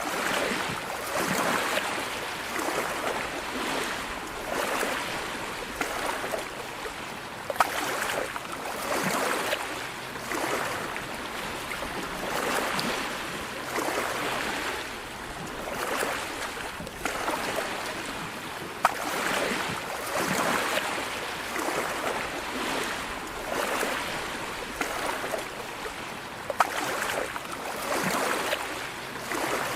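Sea waves washing in, a steady rush that swells and eases every second or two, with a few brief sharp clicks.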